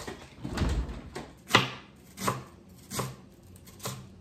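Kitchen knife cutting cabbage on a plastic cutting board: four sharp chopping strokes about three-quarters of a second apart, starting about one and a half seconds in. A dull knock and rustle come in the first second.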